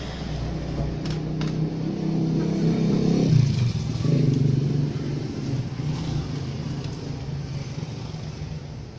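A motor vehicle's engine running past, growing louder to a peak about three seconds in, then slowly fading.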